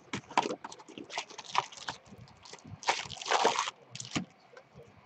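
A cardboard hobby box of baseball cards being opened and its foil-wrapped packs pulled out: a run of short crinkles and rustles, with a longer rustle about three seconds in.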